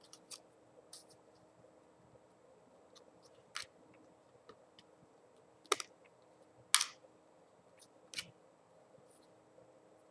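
Paper-stock trading cards being flipped off a stack one at a time by hand: scattered short snaps and rustles of card against card, about half a dozen, the two loudest a little past halfway.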